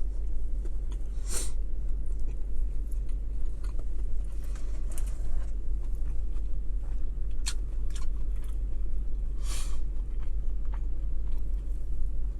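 Close-up chewing and biting of McDonald's food, with a few short crunchy bites spread through, over a steady low hum.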